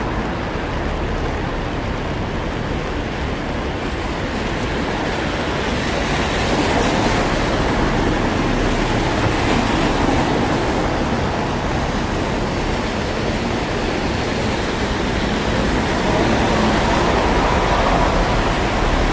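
Steady hiss of rain and traffic on a city street, with no distinct events, growing brighter and a little louder about six seconds in.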